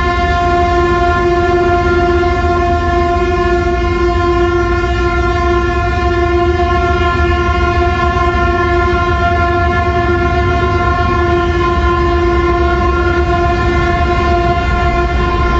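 A horn held in one long, steady blast over a low rumble: the horns sounded in mourning for the earthquake victims.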